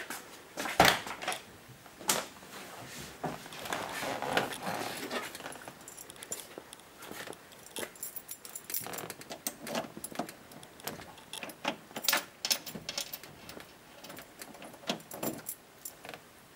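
A bunch of keys jangling and clicking in the hand on and off, as the ignition key is being searched for on the ring.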